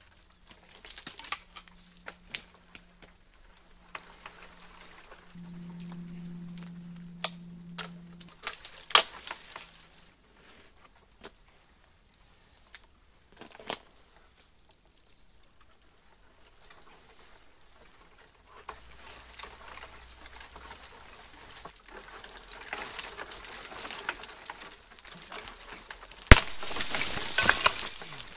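Twigs cracking and leaves rustling as a man climbs about in a tree. Near the end a sharp crack, the loudest sound, is followed by a second or so of crashing through dry branches and brush as he comes down from the tree.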